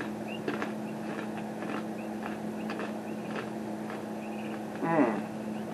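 Crunchy roasted corn nuts being chewed close to the microphone: irregular crisp crunches throughout, over a steady hum. A short falling vocal sound comes about five seconds in.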